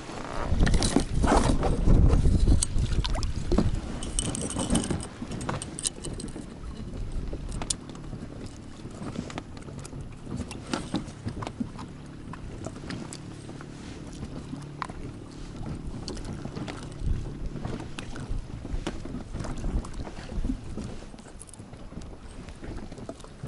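Handling noises aboard a small fishing boat: scattered clicks and knocks of gear, with a heavier low rumble in the first few seconds.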